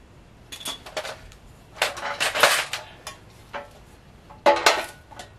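Metal parts of an industrial sewing machine's steel table stand clanking and rattling as they are handled and bolted together. There are a few light clicks, then a longer rattle about two seconds in, and two sharp clanks near the end.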